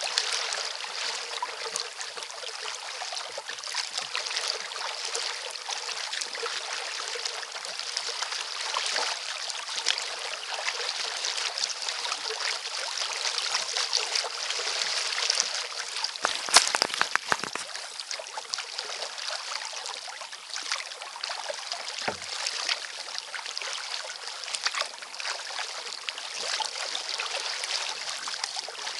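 Small waves lapping and splashing steadily against the hull of an Elie Sound 100 recreational kayak, heard close to the waterline. A little past halfway comes a brief cluster of sharp knocks, with one soft thud some seconds later.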